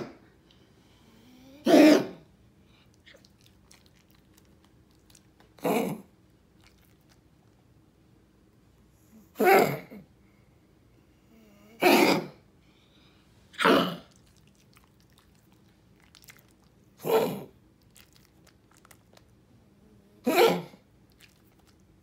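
Small dog coughing: seven separate harsh coughs, each short, spaced a few seconds apart.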